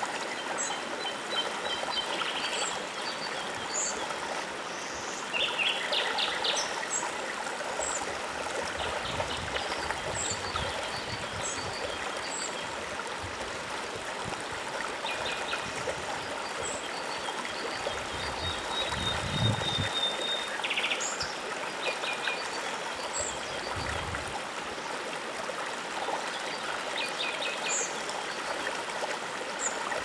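Shallow stony forest river flowing in a steady rush of water, with several birds calling over it: short high chirps and repeated trilled phrases now and then.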